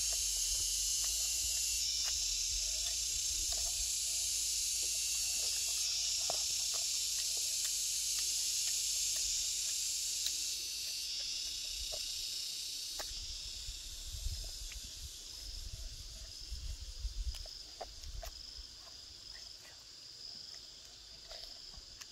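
Dense, high-pitched insect chorus, steady and hissing, that drops in level about halfway through and thins to a faint, regular pulsing chirp. Scattered light clicks and rustles sound over it.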